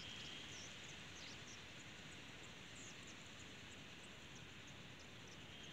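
Faint ambience: a steady low rumble with many short, high chirps of small birds scattered through it.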